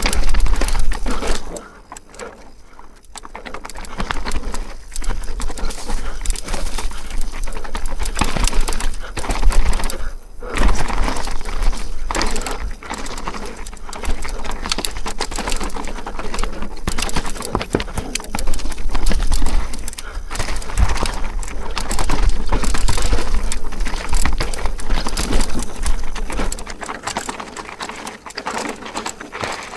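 Mountain bike being ridden fast down a dirt downhill trail, heard from a camera on the bike or rider: a heavy low rumble of wind on the microphone, with the tyres and frame clattering over bumps and roots in constant rapid knocks. There are brief lulls about two seconds and ten seconds in, and the low rumble drops away near the end.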